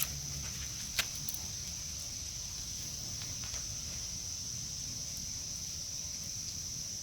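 Steady high-pitched insect chorus, a continuous trill of crickets, with a single sharp click about a second in.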